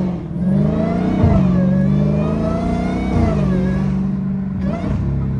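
Dodge Hellcat's supercharged 6.2-litre Hemi V8 running loud under throttle, its note steady apart from two sharp dips, about a second in and about three seconds in.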